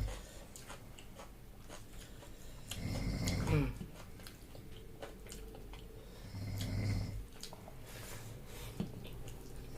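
Snoring: three slow, low snores, about one every three and a half seconds. Between them come small clicks of chewing.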